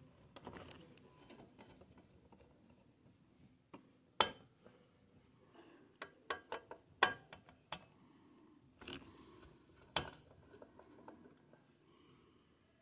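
Scattered sharp clicks and knocks of a screwdriver and hands handling a stereo receiver as work on its screws begins, with faint rustling between: one click about four seconds in, a quick cluster from about six to eight seconds, another near ten seconds.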